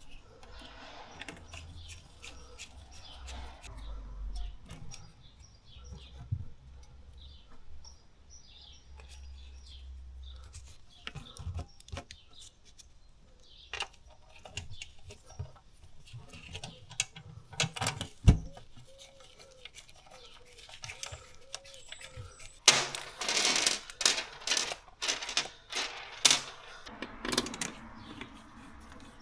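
Hand tools and metal gearbox parts being handled during a repair: scattered clicks, taps and light clatter, with one sharp knock about 18 s in and a busier, louder stretch of clatter and scraping from about 23 to 27 s.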